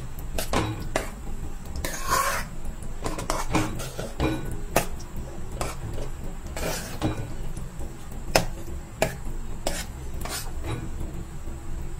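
Steel spoon stirring grated pumpkin roasting in ghee in a steel kadhai, clinking and scraping against the pan at irregular intervals.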